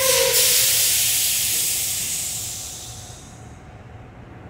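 A sudden loud burst of compressed air hissing out, with a brief tone at its start, fading away over about three seconds: air venting from railroad equipment's air brake system.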